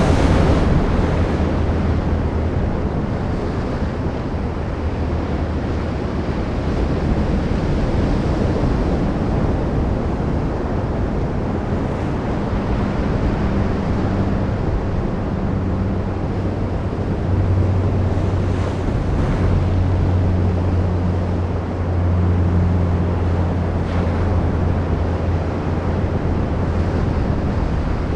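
Ocean waves breaking and washing on the shore in a steady wash of surf that swells and eases every few seconds, over a deep low rumble.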